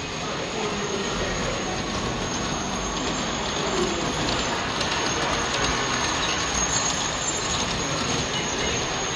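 Model trains running on a layout, the wheels clicking rapidly over the track joints, the clicks densest in the middle of the stretch.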